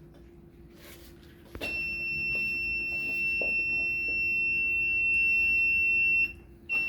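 Home-made Raspberry Pi house alarm going off about a second and a half in: a loud, steady, high-pitched electronic tone, triggered by something brought close to its ultrasonic sensor. The tone cuts out briefly near the end and then starts again.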